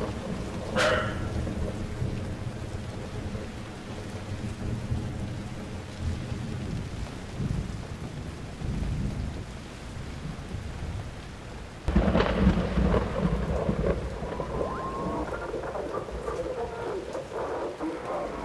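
Thunderstorm: steady rain with low rolling thunder, and a sudden loud thunderclap about twelve seconds in that rumbles on afterwards.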